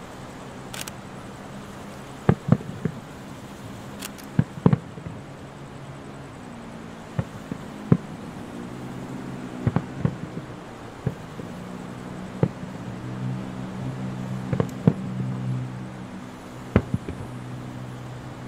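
Aerial fireworks shells bursting: about fifteen sharp bangs at irregular intervals, several in quick pairs, over a steady low hum.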